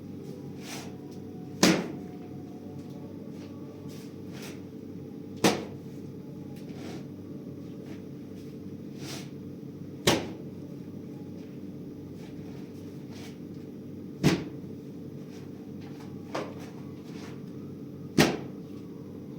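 Five sharp knocks, roughly four seconds apart, with a few fainter clicks between them, over a steady low hum.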